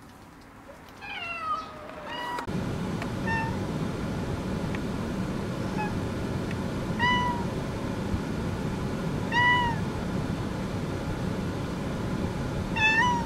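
A cat in a soft mesh pet carrier meowing repeatedly on a car ride: about seven short meows a second or two apart, the first a longer falling one. From about two seconds in, the steady running noise of the car sits under them.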